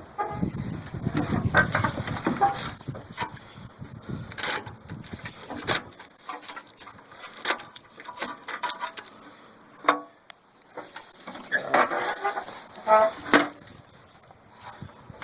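Irregular clicks, knocks and rustling of a riding mower's wiring harness being tugged and worked loose from the frame, its plastic connectors and clips clattering against the mower.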